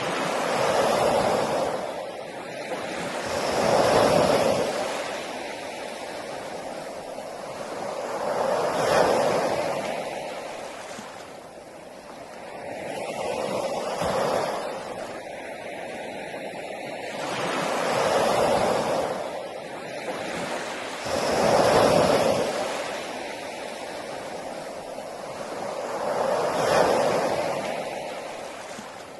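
Sea waves breaking on a beach: surf swells up and washes back about every four to five seconds, about seven waves in all.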